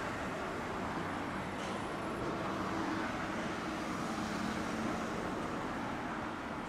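Street traffic, with cars passing on the road and a streetcar running away along its tracks, a steady even noise throughout.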